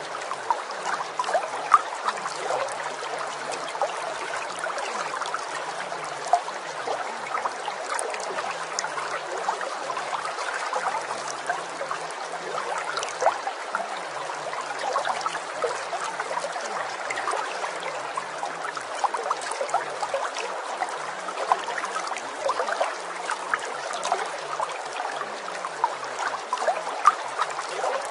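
Steady trickling of running water, like a small babbling stream, with many small splashes throughout.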